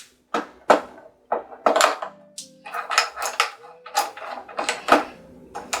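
Hard parts of a ring light stand being unscrewed and handled: about a dozen sharp clicks and knocks of metal and plastic, irregularly spaced.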